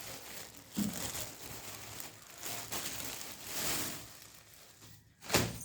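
Packaging crinkling and rustling as it is handled and opened, in irregular swishes, with one sharp, louder rustle near the end.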